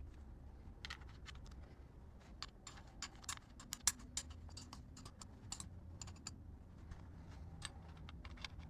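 Irregular quick light clicks and taps, a couple of dozen, from hand tools and small metal parts being handled during cylinder head work, over a faint low steady hum.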